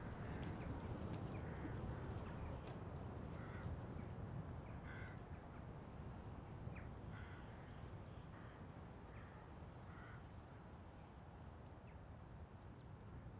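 Faint outdoor ambience: a low background rumble that slowly fades, with a distant bird giving short calls every second or two and a few faint high chirps.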